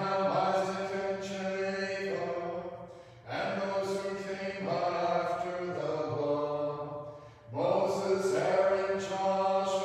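Unaccompanied Orthodox liturgical chant sung by voices during Vespers, in phrases of a few seconds with brief breath pauses between them.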